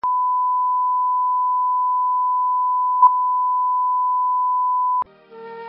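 Steady 1 kHz reference tone of a broadcast colour-bar and countdown leader, with a brief click about three seconds in. It cuts off suddenly after about five seconds, and music begins faintly near the end.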